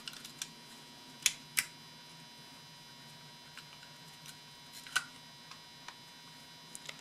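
Sharp clicks and light taps of small plastic ignition-switch parts being handled and fitted together: two close clicks a little over a second in and another about five seconds in, with smaller ticks between, over a steady electrical hum.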